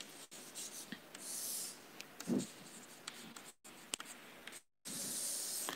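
Chalk writing and ruling lines on a chalkboard: faint scratchy chalk strokes with light taps, the longest strokes about a second in and near the end. A brief low sound about two seconds in.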